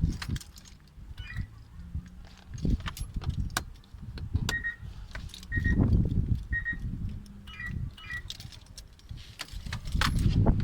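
Small clicks, rattles and knocks from handling wiring and a test light at an idle control valve plug, with a few short high beeps in the middle stretch.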